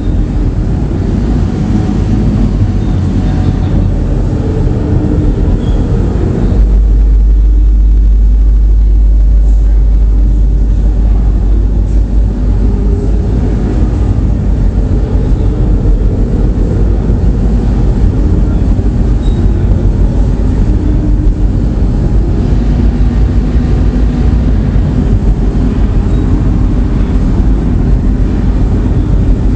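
Loud experimental noise/drone music: a dense, rumbling low-pitched wall of sound, joined about six and a half seconds in by a very heavy, steady deep bass.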